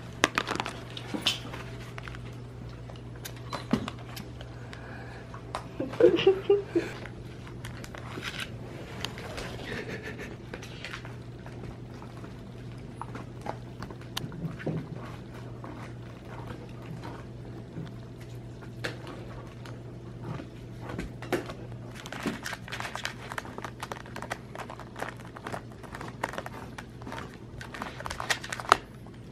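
Dogs gnawing and crunching on chew treats: irregular clicks and crunches over a steady low hum, with a louder cluster of noises about six seconds in.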